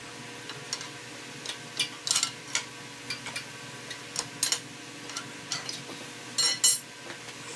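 Irregular light metal clinks and knocks from a crowbar working against the axle shaft and housing of a Ford Super Duty Dana 60 front axle, prying the shaft loose from its inner seal. A low steady hum runs underneath.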